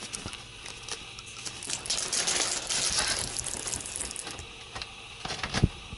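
Light clicks and rattles from a roller window shade being handled in its brackets, with a rustle about two seconds in and a single sharp knock near the end.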